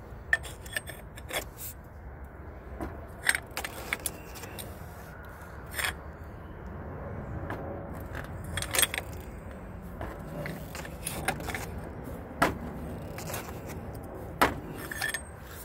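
Scattered metallic clicks and clinks of a ratchet and socket extension working on a starter's mounting bolts, irregularly spaced, over a steady low rumble.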